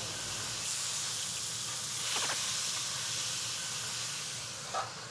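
Small whole fish pan-frying in oil with a steady sizzle while being turned over with a slotted spatula, with a couple of brief sharper sounds about two seconds in and near the end.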